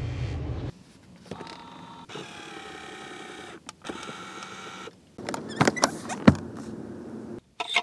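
A small electric motor of one of the Toyota Century's power-operated fittings runs in two steady whirs, each a second or two long, followed by a few sharp clicks.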